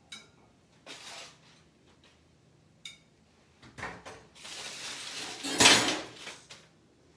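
Cookware and utensils being handled: a few light clicks and knocks, then a denser stretch of clatter in the second half, loudest about two thirds of the way through.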